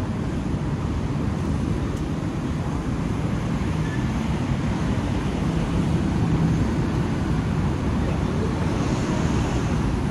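Steady city street noise: a low rumble of road traffic passing on a busy road, with no single event standing out.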